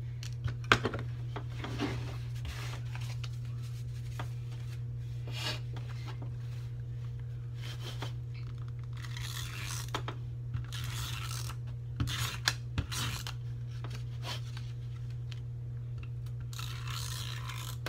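Handheld Scotch tape runner drawn across card stock to lay adhesive on the backs of paper passes: a few short scraping strokes, the longest about 9 and 17 seconds in, with scattered clicks and taps of the dispenser and cards on the table, over a steady low hum.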